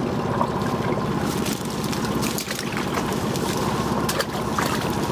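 Small outboard motor idling steadily, a low even running, with a few light clicks.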